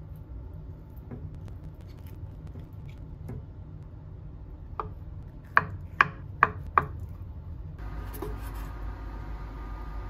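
Kitchen knife chopping an avocado on a wooden cutting board: a few light taps, then five sharp knocks in quick succession about five to seven seconds in. A steady low hum comes in near the end.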